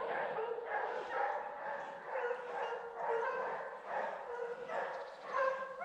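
A pack of scent hounds in full cry, baying with many overlapping calls as they chase wild boar.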